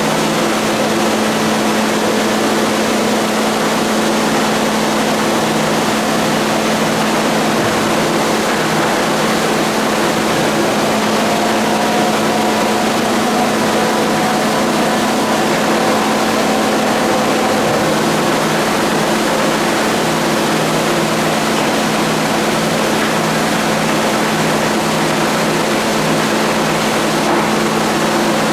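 A 52-inch King vertical boring mill running under power, with its motors and grinding spindle making a steady hum of several tones over an even whirring noise. A faint higher whine rises in and out about halfway through.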